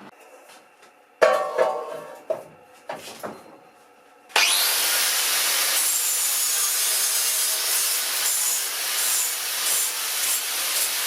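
A few knocks and rattles, then about four seconds in a motor-driven machine starts up with a quick spin-up and runs steadily with a dense, high-reaching noise.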